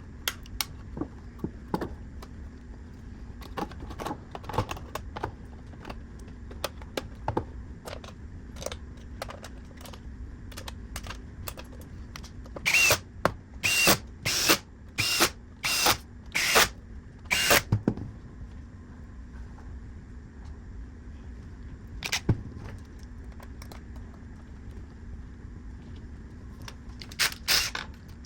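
Scattered small clicks and taps of parts being handled during reassembly of an Xbox Series S. Midway come about nine short whirring bursts in quick succession, each with the same high tone, like a small power screwdriver driving screws.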